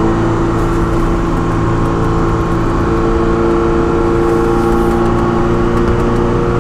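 Ferrari 308 QV's flat-plane-crank V8 running at a steady speed while the car drives along, heard from a camera mounted on the outside of the car.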